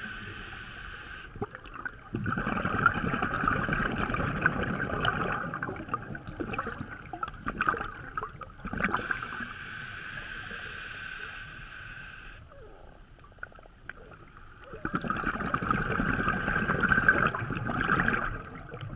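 Scuba diver breathing through a regulator, heard underwater through the camera housing: two long bursts of exhaled bubbles gurgling, one starting about two seconds in and another about fifteen seconds in, with quieter stretches between.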